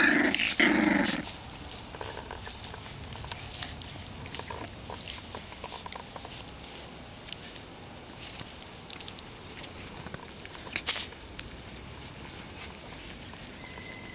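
26-day-old boxer puppies play-fighting: two loud yelps at the very start, then quieter short yips and small sounds, with one more sharp cry about eleven seconds in.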